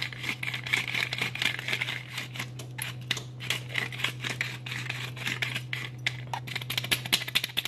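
Hand-twisted pepper mill grinding black pepper, a dense run of rapid crunchy clicks, over a steady low hum.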